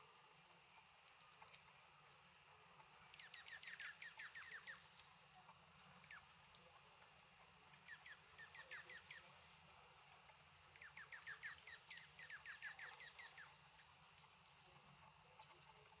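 Faint songbird trills: three bursts of quick, repeated down-slurred notes, each lasting one to two and a half seconds, followed near the end by two short, high chips.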